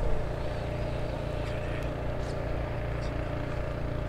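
Steady low motor hum, even and unbroken, with a few faint high chirps over it.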